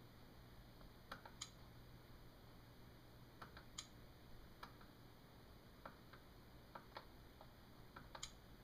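Faint computer mouse button clicks, about a dozen scattered irregularly and often in quick pairs, over a low steady hum.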